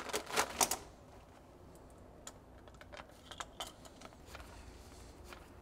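Plastic packaging rustling as a new tie rod is unwrapped, loudest in the first second, followed by scattered light clicks and taps as the steel tie rod parts are handled on a metal workbench.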